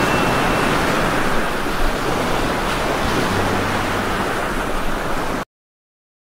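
Heavy rain pouring down on leafy plants as a steady, dense hiss, which cuts off abruptly to silence near the end.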